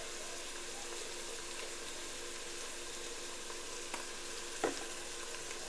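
Ground beef and onions sizzling steadily in a stainless steel stockpot, over a faint steady hum, with a couple of faint taps in the second half.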